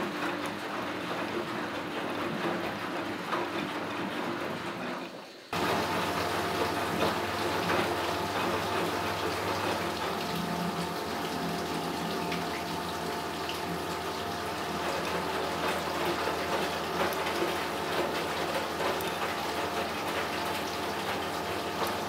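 Miele Automatic 416 washing machine (1964) tumbling its load. About five seconds in, a steady rush of water starts abruptly and runs on while the drum keeps turning: water flowing into the machine.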